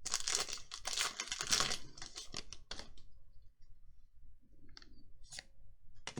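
Rustling and scraping of Magic: The Gathering cards and booster-pack packaging being handled for about three seconds, then a few light clicks near the end.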